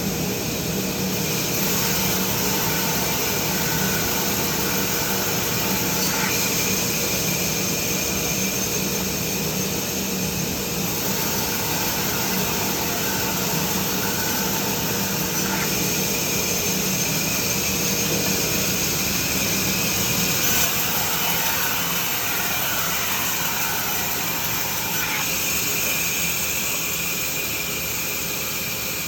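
Vertical band saw and its roller power feeder running steadily: a continuous machine hum with a hiss over it, changing only slightly now and then.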